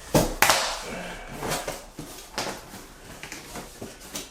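Cardboard shipping box and packaging being handled: two sharp knocks at the start, then scattered soft clicks, scrapes and rustles.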